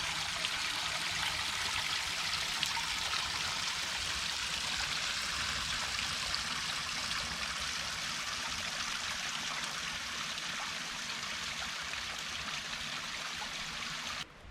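Creek water flowing in a steady, unbroken rush; the sound cuts off suddenly near the end.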